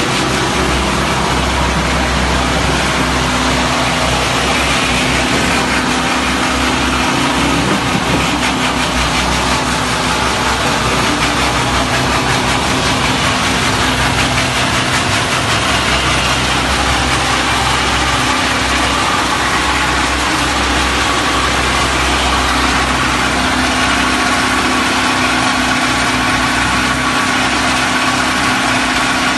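Diesel engine of a HAMAC DHBT15 concrete mixer pump running steadily.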